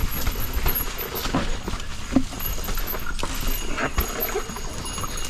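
Yeti SB150 full-suspension mountain bike riding a dirt trail: tyres rolling over the ground and the bike rattling, with many sharp, irregular knocks and clicks over a steady low rumble.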